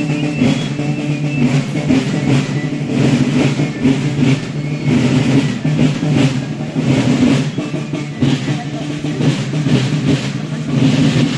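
Marching band music with drums beating a steady march rhythm.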